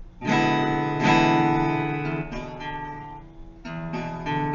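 Guitar strumming an E7 chord: two strums near the start that ring and slowly fade, then two more strums near the end.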